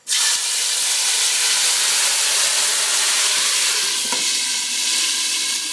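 A steady hiss, strongest in the upper range, that starts suddenly at the opening: a noise sound effect laid under an animated logo intro.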